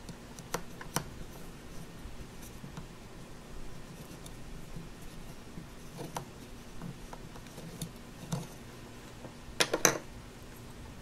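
A plastic toy roller worked over soft Play-Doh on a wooden tabletop: faint rubbing with scattered light clicks. A short cluster of louder, sharper clacks comes near the end.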